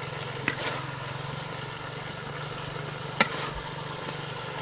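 A steady low motor-like hum under a light hiss, with two sharp clicks, one about half a second in and a louder one about three seconds in.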